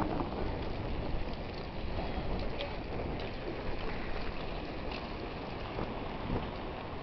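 Steady rushing noise of wind on the microphone and a bicycle rolling along pavement, with a few faint ticks.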